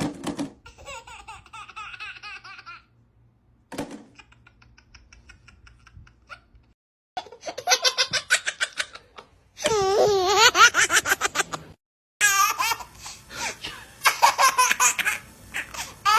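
A run of separate clips of babies laughing, one after another with short silent gaps between them: a quieter giggling stretch first, then louder, rapid, rhythmic belly laughs from about halfway through.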